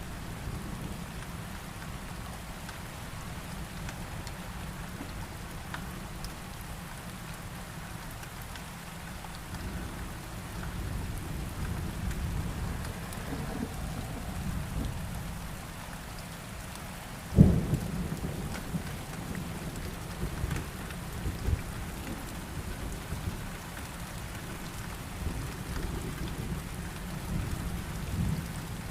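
Heavy rain falling steadily under low rumbling thunder, with one sharp, loud thunderclap a little past halfway and a few fainter cracks after it.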